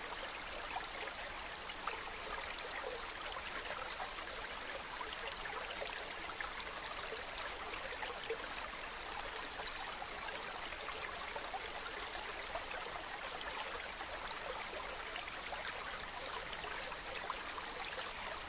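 Stream of water running steadily over rocks, an even rush with many small splashes and trickles.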